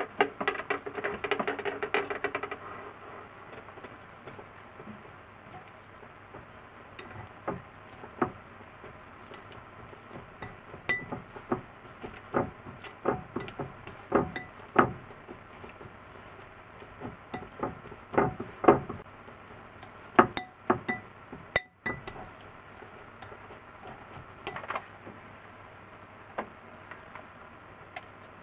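A kitchen utensil clinking and knocking against a glass bowl as cooked potatoes are mashed, in irregular strokes. A rapid clatter fills the first two seconds or so.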